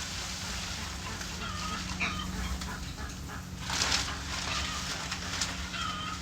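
Farm poultry giving a few short calls while hay rustles in a couple of brief bursts, the loudest about four seconds in, over a steady low hum.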